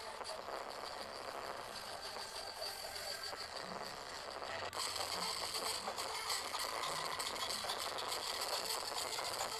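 Steady, noisy outdoor background: a mixed haze of street and crowd noise that gets louder about halfway through.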